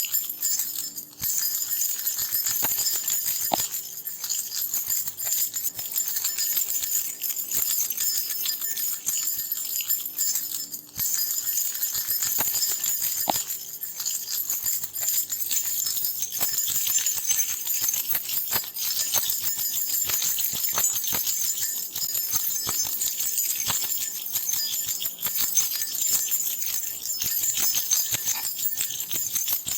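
A bunch of metal keys shaken continuously in a dense, bright jingling, with brief pauses about a second in and again about eleven seconds in.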